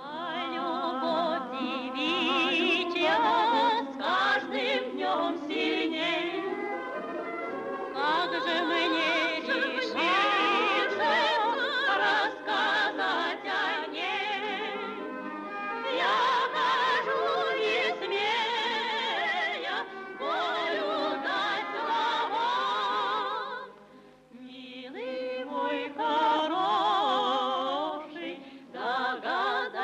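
Women's choir singing a Russian folk-style song in unison, the voices wavering with vibrato, with a short break between phrases late on.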